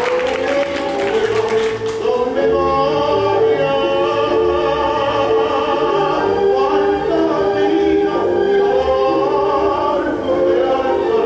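Tango song with a singer's long, held notes over the accompanying band, and a patter of sharp clicks during the first two seconds.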